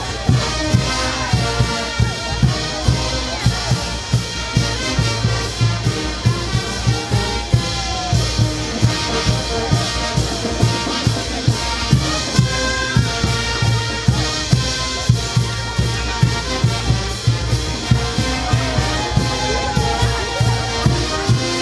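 Brass band playing a tune with sustained brass over a steady drum beat, about two beats a second.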